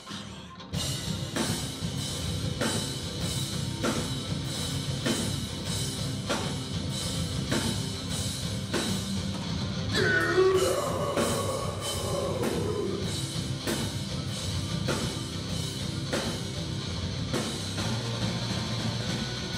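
A live rock band, with drum kit, electric guitar and bass guitar, playing a heavy rock song. After a brief break the full band comes back in under a second in, driven by a steady drum beat, and a vocal line comes in about halfway through.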